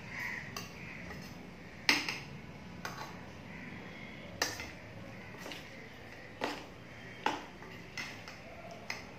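Spoon stirring a thick prawn and mustard-paste mixture in a stainless-steel bowl, clinking against the bowl about seven times at irregular intervals, with soft scraping in between.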